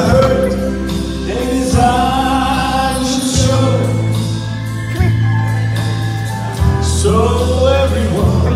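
A man singing into a microphone over backing music, holding long notes, with sustained bass notes underneath that change a few times.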